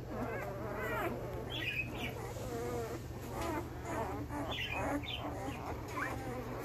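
Week-old Belgian Malinois puppies whining and squeaking: many short, wavering, overlapping calls, some rising to thin high squeals. A steady low hum runs underneath.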